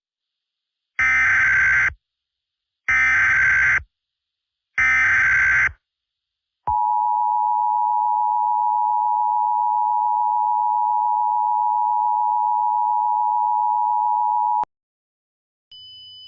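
Emergency Alert System tones: three one-second bursts of SAME header data tones, evenly spaced, then the EAS two-tone attention signal held steady for about eight seconds before cutting off sharply. A faint high tone begins near the end.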